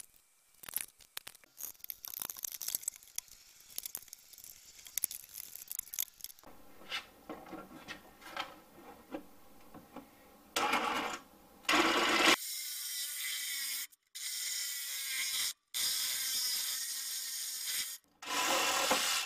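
Small clicks and scraping of tool work on a plastic leaf-vacuum housing. From about halfway, a cordless reciprocating saw cuts through the vacuum's plastic outlet tube, running loudly in several stretches with brief stops.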